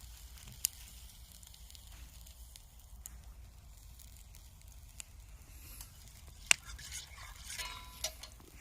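Food sizzling faintly over a campfire, with a few sharp pops, the loudest about six and a half seconds in, and a short rattle near the end.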